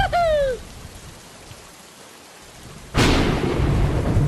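Thunder sound effect: a sudden sharp thunderclap about three seconds in, fading into the steady hiss of heavy rain. A short falling voice-like call is heard at the very start.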